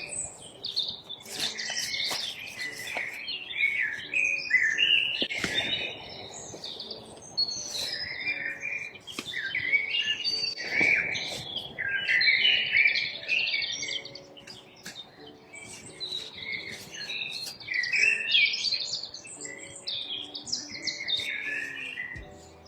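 Many songbirds chirping and twittering together in dense, overlapping calls.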